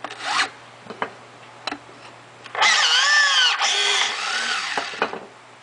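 Electro-hydraulic motor of a battery-powered rivet-nut tool running through an install cycle on an M8 rivet nut in steel plate. It starts with a whine that sweeps up and down in pitch for about a second, then hums more steadily for about a second and a half. A few light clicks come before it.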